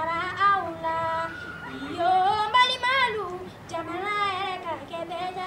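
A young woman singing solo, with long held notes that bend and waver, broken by short breaths.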